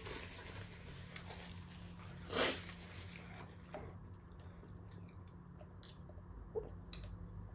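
Faint chewing and mouth sounds of someone eating fast food, with one louder bite about two and a half seconds in and a few small clicks later.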